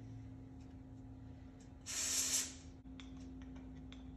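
Aerosol spray can giving one short hissing spray of about half a second, about two seconds in, followed by a few light clicks.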